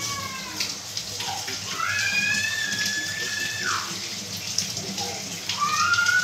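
Kitchen tap running into a steel sink with the small knocks of hand-washing. Over it, three long, high wailing cries, the middle one held about two seconds before it drops away.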